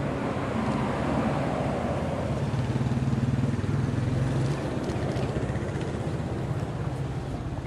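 Car engine running steadily, louder through the first half and easing off about four and a half seconds in.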